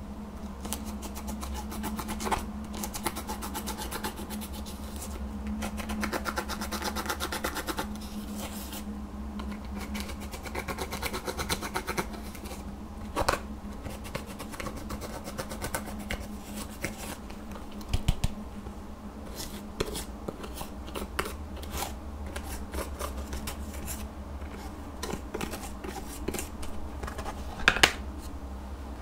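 A plastic spatula scrapes and crumbles pressed glitter eyeshadow out of a palette's pans, making dense runs of fine, scratchy clicks. A few louder sharp taps come about halfway through and again near the end.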